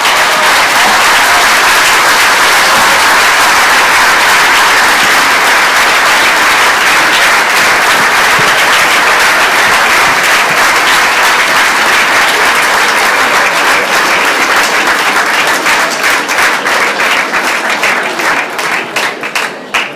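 Audience applauding, a dense steady clapping that thins into separate scattered claps near the end and then stops.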